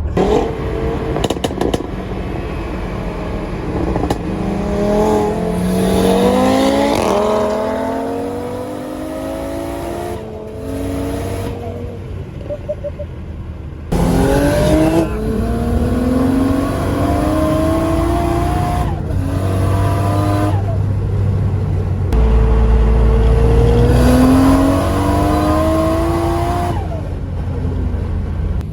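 Turbocharged RB25 straight-six in an R33 Skyline accelerating hard. Its pitch climbs through the revs in about three long pulls, and each pull cuts off sharply as the throttle is lifted.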